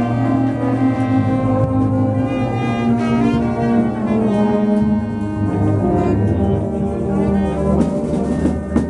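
Brass band playing a slow piece of sustained chords, with euphoniums and tubas carrying the low parts. A few sharp percussive hits come in near the end.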